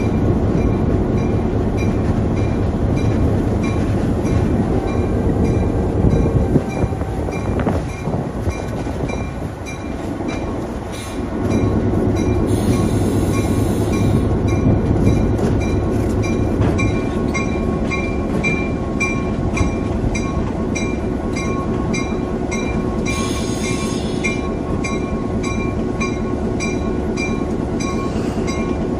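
CF7 diesel locomotive's EMD 16-567 engine running, heard from inside the cab as the locomotive moves along yard track. A steady ticking comes about twice a second, and there are two brief hisses. The engine eases off for a few seconds around the middle, then comes back up.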